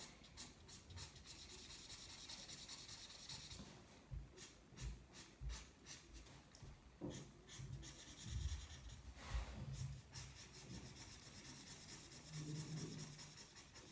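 Felt-tip marker scratching on paper in rapid back-and-forth strokes while colouring in an area, faint. A few soft low thumps come in the middle.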